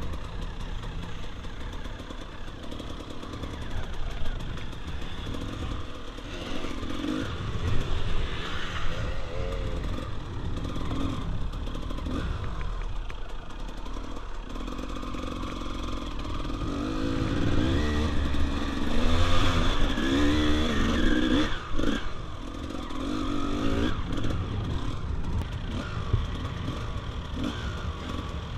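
Enduro dirt bike engine revving up and down with the throttle over rough ground, with occasional knocks and clatter from the bike. It is loudest about two-thirds of the way through.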